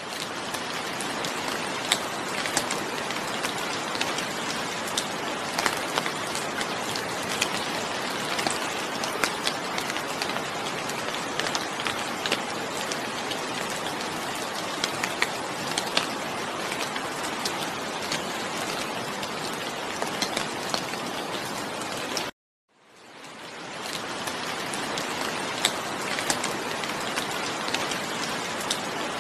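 Steady rain falling, a dense hiss with many individual drops ticking sharply on a hard surface. About 22 seconds in it cuts out abruptly for a moment and fades back in.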